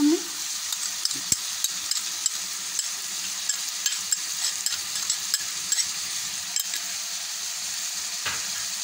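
Chicken pieces frying in oil in a pan, with fresh cream just spooned on top: a steady sizzle with scattered crackling pops. A soft knock about a second in and another near the end.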